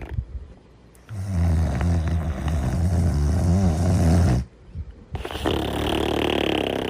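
Snoring: after a short quiet moment, one long, deep snore of about three seconds, then a brief pause, and the next snore starts, breathier.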